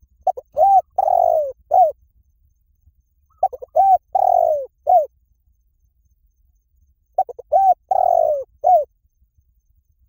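Spotted dove cooing: three song phrases about three and a half seconds apart. Each phrase is a few short coos, a longer drawn-out coo and a final short coo.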